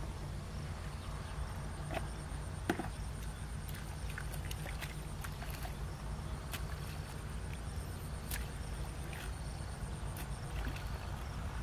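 A steady low rumble with a few faint scattered clicks and splashes of a hoe working mud and shallow water.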